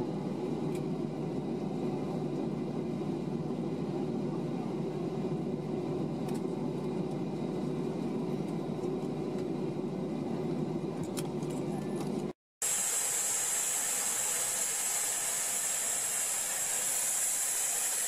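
Steady engine rumble of a Boeing 737 at taxi, heard from inside the passenger cabin. After a sudden cut about twelve seconds in, a steady high-pitched hiss takes over.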